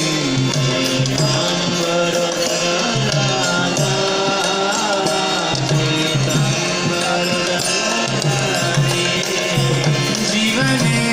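Devotional music: a melody sung or chanted over a steady rhythm on hand drums, typical of temple kirtan.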